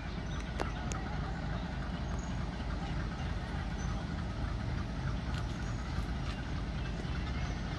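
Diesel locomotive engine running with a steady low rumble as the locomotive moves slowly along the line.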